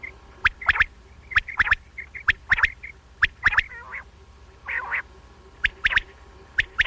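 Quail calling: short, sharp, clipped notes repeated in quick groups of two or three, with a few longer, harsher calls mixed in, over a faint steady hum.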